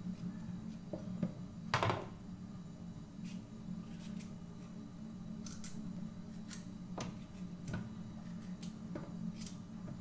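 Knife cutting carrots into small pieces by hand over a plastic container: irregular crisp snaps, one louder crack about two seconds in, over a steady low hum.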